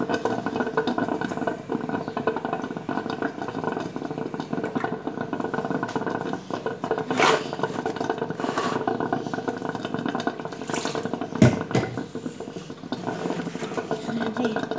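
A steady mechanical hum made of several fixed pitches, with a few sharp knocks, the loudest about eleven and a half seconds in.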